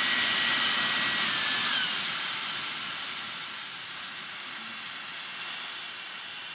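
Dyson Supersonic HD01 hair dryer running, a steady rush of air with a thin high whine from its motor, working again after repair. Between one and two seconds in the whine steps down in pitch and the airflow grows quieter as it is switched to a lower setting.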